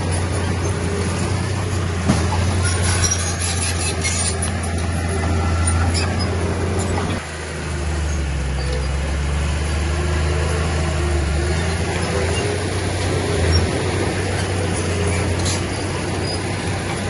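Heavy earthmoving machinery's diesel engine running steadily, dipping briefly about seven seconds in and then settling to a lower pitch, with scattered clicks and knocks over it.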